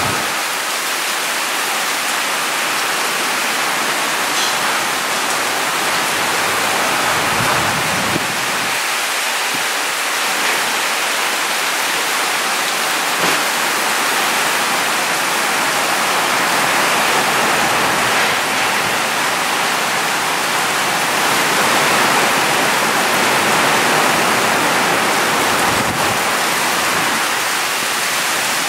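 Heavy downpour drumming on sheet-metal roofs and foliage: a loud, steady, dense hiss of rain that swells a little in the middle.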